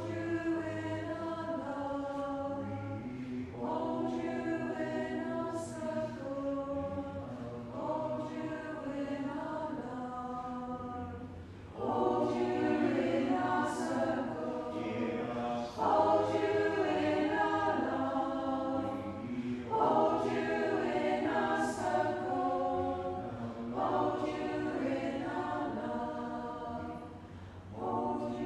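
Community choir singing in phrases a few seconds long, growing louder about twelve seconds in.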